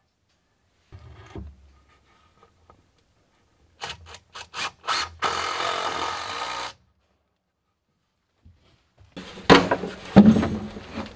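A few sharp knocks, then a power drill runs steadily for about a second and a half, driving a screw into a wooden runner. Near the end, a plastic bin is set down on the wooden runners with loud knocks and rubbing.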